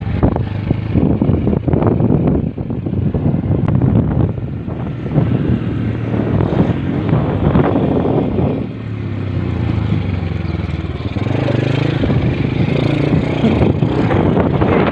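An engine running continuously, its pitch shifting a little toward the end, with rough rumbling noise.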